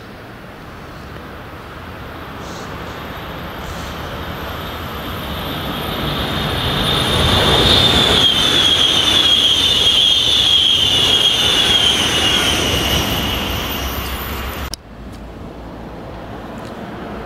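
SBB RABDe 500 ICN tilting electric multiple unit passing at speed: a rising rush of wheels on rail with a high whine that falls slightly in pitch as it goes by. The sound cuts off suddenly near the end.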